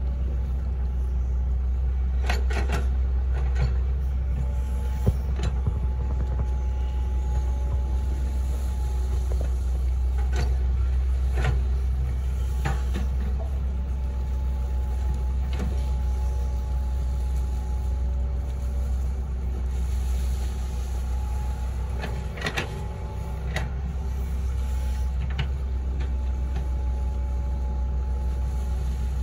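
Hitachi Zaxis 110 MF excavator's diesel engine running steadily under digging load, a deep rumble with a hydraulic whine that comes and goes. A few sharp clanks sound now and then as the bucket works the trench.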